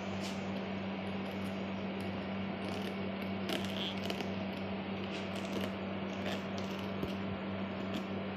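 A small knife cutting into the core of a raw cabbage head, giving scattered short crunches and squeaks of the leaves, over a steady low electrical hum.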